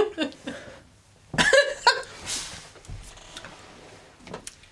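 A man's short throaty vocal sound about a second and a half in, followed by a breathy exhale, in an otherwise fairly quiet small room.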